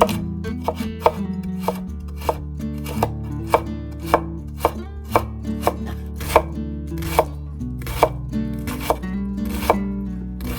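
Knife chopping vegetables on a cutting board in slow, even strokes, about two a second, over soft background music.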